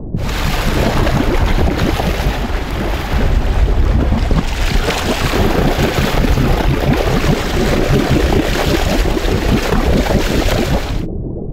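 Sea water splashing and rushing at the surface beside a hooked blue marlin, with wind buffeting the microphone. The sound cuts off abruptly near the end as the camera goes under and turns muffled.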